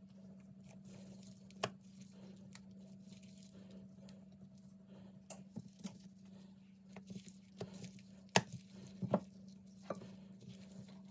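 Soft taps, clicks and wet handling noises of a gloved hand working dough knots: dipping them into a glass bowl of garlic-butter mixture and setting them down in a ceramic baking dish, with the sharpest tap about eight seconds in. A steady low hum runs underneath.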